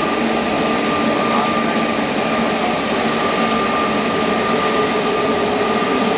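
Jet airliner's engines running close by: a steady rushing noise with a high, even whine and a lower hum.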